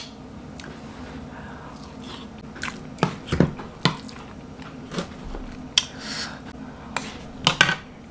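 Person chewing and biting into food, a piece of meat in a green spinach sauce, with scattered wet mouth smacks and clicks over a steady low hum.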